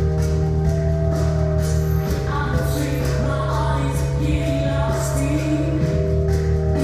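Music: held bass and chords under a steady beat, with singing voices.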